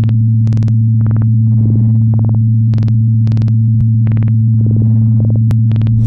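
Electronic sci-fi sound design: a steady loud low synthesized hum, with short computer-like beeps and blips repeating about twice a second.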